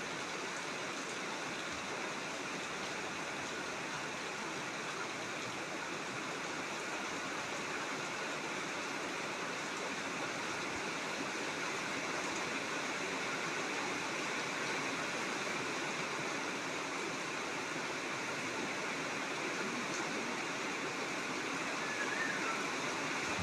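Heavy rain pouring down, a steady, even rushing hiss that slowly grows a little louder.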